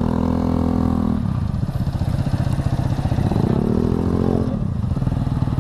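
Yamaha RX-King's two-stroke single-cylinder engine pulling under throttle while riding. Its pitch climbs and holds for about a second, drops back, then climbs again about three seconds in and falls away near the end.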